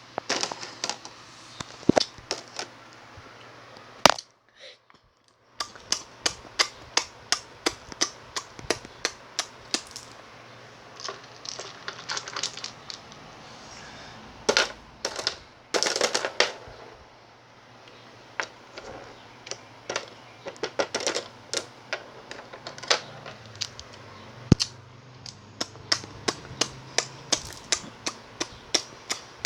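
Mock eating sounds: a fast run of sharp crunching clicks, about two to three a second, with a short break about four seconds in.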